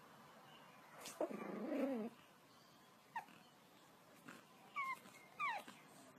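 Pug puppy vocalising: a low, wavering grumble lasting under a second about a second in, then three short high whimpers that slide down in pitch in the second half.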